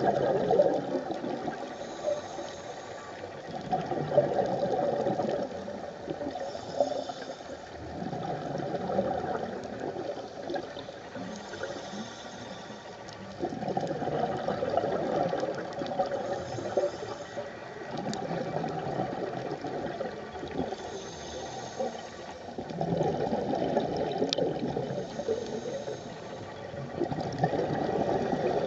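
A scuba diver breathing through a regulator underwater. Each breath is a short, high hiss on the inhale, followed by a longer bubbling of exhaled air, repeating about every four to five seconds.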